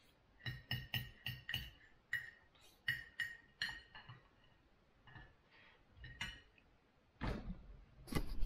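Metal knife and fork clinking and scraping on a plate while cutting food, about a dozen quick ringing clinks in the first few seconds, then fewer. Near the end, louder rustling and bumping as the camera is handled and picked up.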